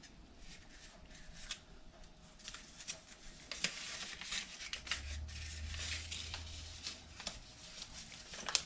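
Paper rustling and crinkling as a rolled slip of paper is pulled out and unrolled by hand, a string of short, irregular soft rustles that grows busier in the middle.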